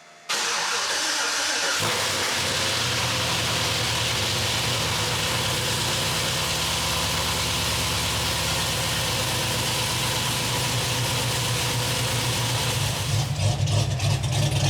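Cadillac CTS-V's supercharged 6.2-litre LSA V8 cranking for about a second and a half, then firing and settling into a steady idle on its first start after new lifters and a ported blower were fitted. Near the end it gets louder and more uneven.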